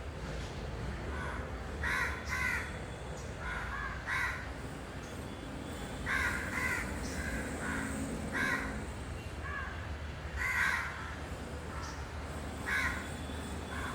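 Parrot giving short, harsh squawks again and again, often two in quick succession, over a steady low hum.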